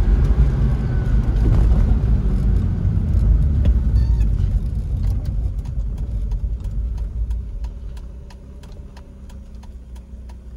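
Car cabin sound: a heavy low engine and road rumble fades as the car slows. About halfway through, a turn signal starts clicking steadily, about twice a second, over the quieter engine.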